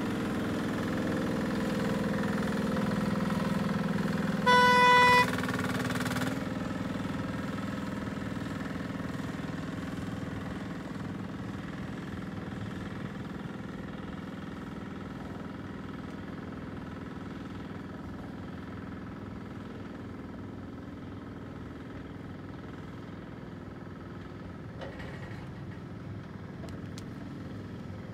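Small engine of a motorized hydraulic grapple carriage running steadily as the carriage travels down the skyline, growing fainter over the first ten seconds. About five seconds in, a single short, loud horn beep sounds over it.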